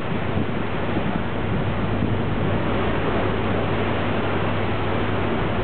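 A ferry's engines running with a steady low hum under a steady rush of wind and sea water.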